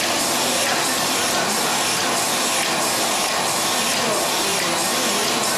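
NJP-400C/800C automatic capsule filling machine running, a steady, even mechanical noise that does not change.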